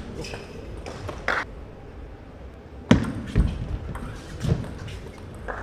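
A table tennis ball clicking off rackets and the table during a rally, a handful of sharp clicks at uneven spacing, the loudest about a second and three seconds in.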